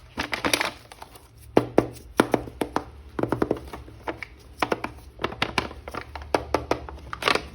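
Hands handling a plastic toy action figure and its packaging: a quick, irregular run of small clicks and taps.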